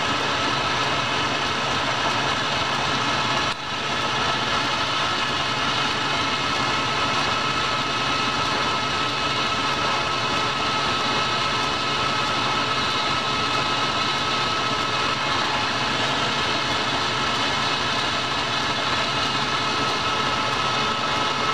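Clausing metal lathe running steadily, turning a small shaft in a three-jaw chuck during a light pass of about ten thousandths, with a steady high whine over the machine noise. The sound briefly drops about three and a half seconds in.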